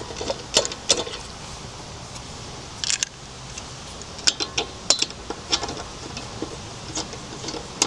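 Light metallic clicks and clinks at irregular intervals, one to two a second, from a wrench and lug nuts being handled at the wheel, over a low steady background hum.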